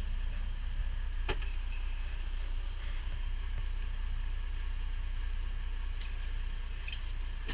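Freightliner Cascadia semi truck's diesel engine idling, heard from inside the cab as a steady low drone with an even hiss over it. A single sharp click comes about a second in, and a few faint ticks near the end.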